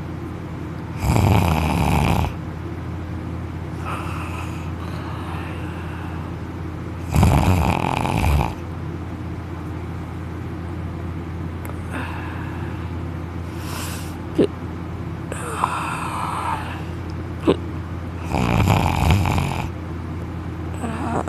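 A young man snoring in deep sleep, lying on his back with his mouth wide open. There are three loud snores about a second and a half long, the first about a second in, the next about six seconds later and the last near the end, with softer breathing snores between them.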